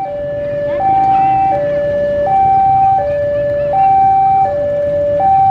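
Railway level-crossing warning alarm sounding a loud two-tone high-low signal, each tone held about three-quarters of a second. It warns that a train is coming, with a low rumble underneath.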